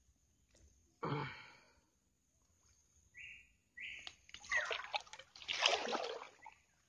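Swamp water splashing and sloshing as a person wades and reaches for a set fishing line. There is a short splash about a second in, and the splashing is heavier and loudest over the last two seconds or so.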